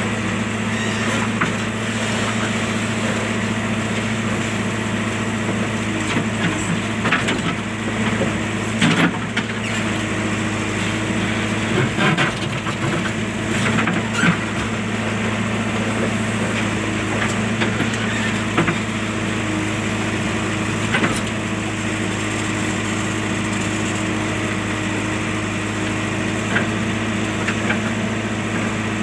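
JCB backhoe loader's diesel engine running at a steady speed, with scattered clicks and knocks over it.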